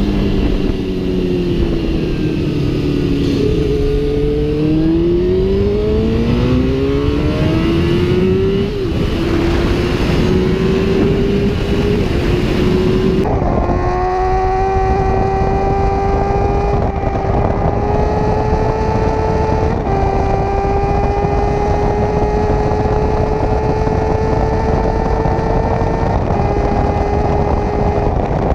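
Sport motorcycle engine heard on board at speed over heavy wind rush: the engine note falls, climbs again, then holds high and pulls slowly higher, with a few brief dips between. The wind hiss drops away suddenly about thirteen seconds in.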